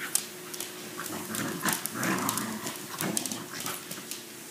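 Small dog growling in short rough bursts while spinning after and biting her own tail, with scattered clicks and scrabbling of claws on a wooden floor.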